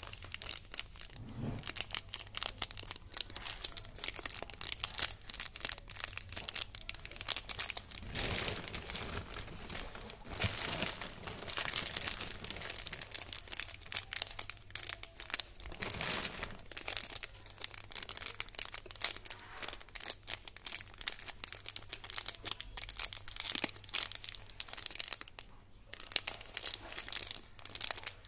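Small plastic candy wrappers crinkling as fingers squeeze and turn two marshmallow candy packets: a dense run of crackles, louder in a few stretches midway.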